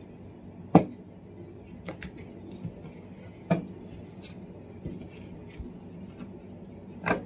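Tarot cards being drawn from the deck and laid down on a table: a few sharp taps and snaps, the loudest about a second in, at about three and a half seconds, and near the end, with fainter ticks between.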